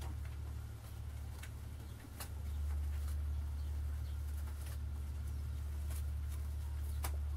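Domestic pigeons cooing in a loft over a low steady hum, with a few light clicks.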